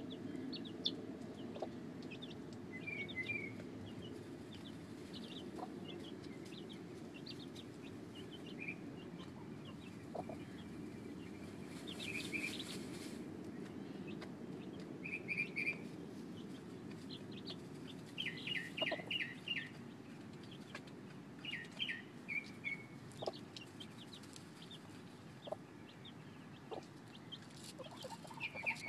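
Chickens clucking softly, with short high calls scattered throughout and a quick run of about five calls near two-thirds of the way in, over a steady low background noise.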